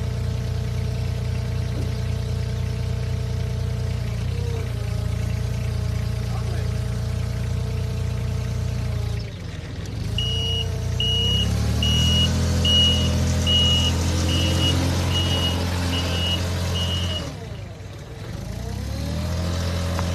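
Diesel engine of a heavy machine running, its pitch dipping and picking up again a few times as it works under load. In the middle comes a run of about ten evenly spaced high beeps from a reversing alarm.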